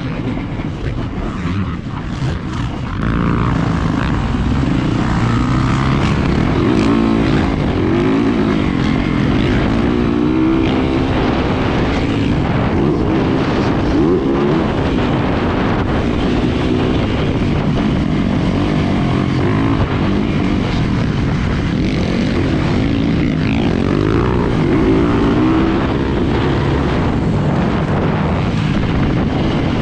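Yamaha YZ450FX's single-cylinder four-stroke engine under hard riding on a motocross track, its pitch repeatedly rising and falling as the rider accelerates and shifts. It gets louder about three seconds in.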